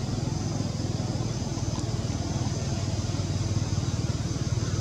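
A small engine running steadily at idle, a low hum with a fast even pulse, under a steady high-pitched drone.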